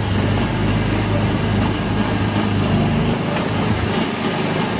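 Small gasoline engine of a Disneyland Autopia ride car running steadily as the car drives along its guide-railed track, with road and wind noise over it; the deepest rumble drops away about three seconds in.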